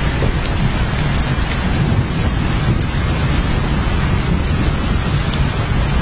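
Steady rain with a deep, continuous low rumble underneath and a few scattered drop ticks.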